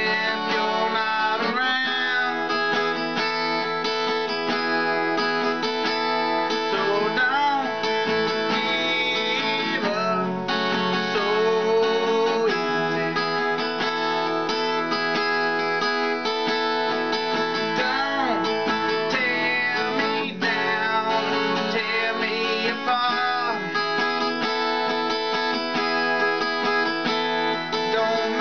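A man singing to his own strummed acoustic guitar; the strumming runs steadily while the voice comes in phrases.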